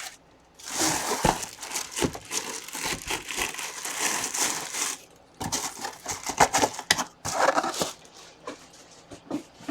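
Packaging being crinkled and handled. The rustling runs thick for about the first five seconds, then thins to scattered crinkles and small clicks.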